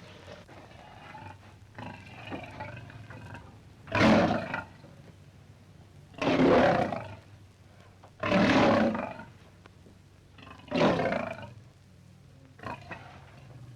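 Lion roaring: softer low calls, then four loud roars about two seconds apart, followed by a shorter, weaker one near the end.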